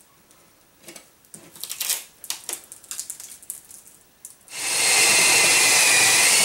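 A hand drywall saw rasps and scrapes through gypsum board, and the cut piece of drywall is pulled out of the wall. About four and a half seconds in, a power drill starts and runs steadily at full speed, its bit boring into the wooden fire blocking inside the wall cavity.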